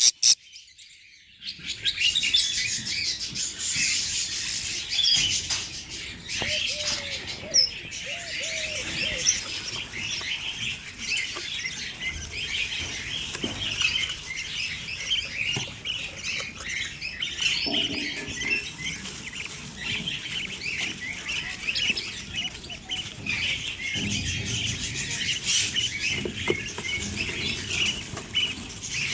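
Budgerigars in an aviary chattering together in a steady, dense stream of chirps, starting about a second and a half in.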